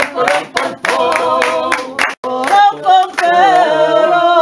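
Female singer scatting 'pam pam' while the audience claps along in time. After a brief break a little past halfway, she holds one long final note with vibrato.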